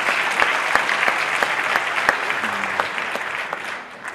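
An audience applauding, the clapping thinning out and dying away near the end.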